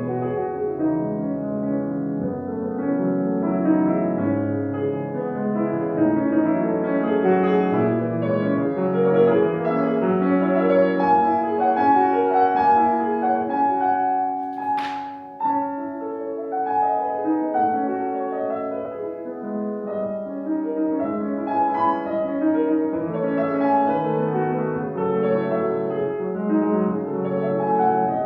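Piano playing classical music, a continuous flow of chords and melody notes. About halfway through the playing briefly thins, and a short sharp noise is heard.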